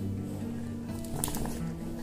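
Background music with held low notes that change step by step.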